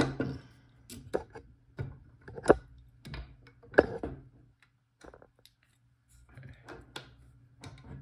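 Irregular sharp metal clicks and taps from a disc-detainer pick and a brass Abloy Classic padlock clamped in a steel bench vise as the pick is handled and brought to the keyway. The two loudest clicks come about two and a half and four seconds in.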